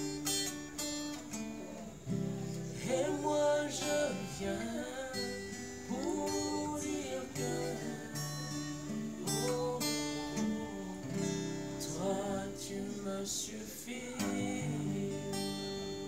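Acoustic guitar strummed in a steady rhythm, with voices singing phrases of a worship song over it.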